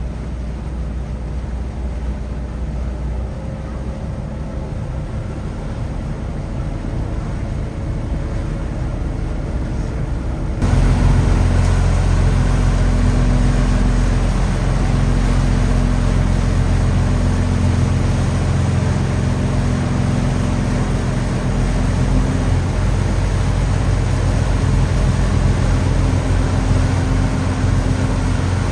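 River ferry's engines running with a steady low drone and hum, under a hiss of wind and water. About ten seconds in, the sound jumps suddenly louder and the hum grows stronger.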